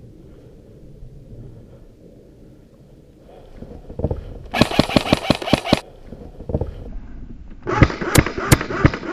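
Airsoft electric rifle (AEG) firing rapid full-auto bursts: a burst of just over a second about four and a half seconds in, then another starting near the end, over a low rumble of wind and movement.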